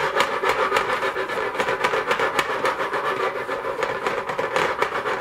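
Wooden chopsticks stirring freshly poured beaten egg in fast circles in a hot nonstick frying pan, clicking and scraping rapidly against the pan. A steady hiss runs underneath.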